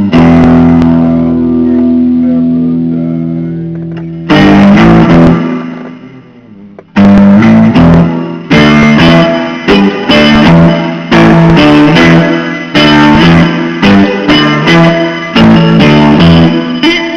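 Blues guitar playing. A held chord rings and fades for about four seconds, then a short phrase and a brief pause, then a run of picked notes and bends to the end.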